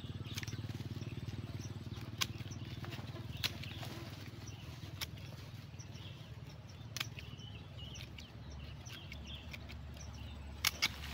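Pruning shears snipping the roots of a wild-dug tree being prepared as a bonsai: a handful of sharp clicks spread through, with two in quick succession near the end, over a steady low hum.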